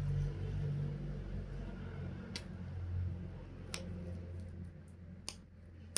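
A low rumble that slowly fades away, with a few single sharp clicks about a second apart, from handling a parcel during unboxing.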